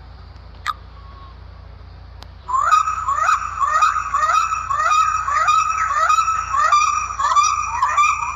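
A bird giving a long run of loud, rapidly repeated calls, about two to three a second, starting about two and a half seconds in after a brief click.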